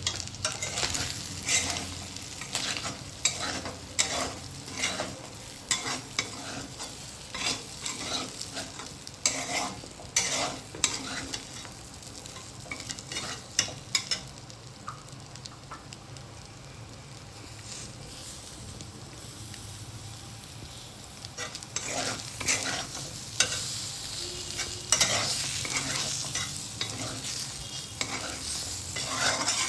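Chicken pieces frying in oil in a pan, sizzling, while a spatula stirs and scrapes against the pan in quick repeated strokes. The stirring eases off for a while in the middle, then picks up again.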